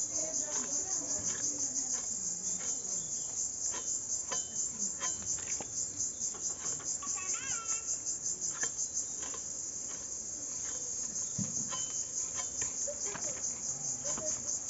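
A chorus of insects shrilling high-pitched with a rapid, even pulse, over scattered sharp taps and scrapes of a boti blade cutting hilsa fish.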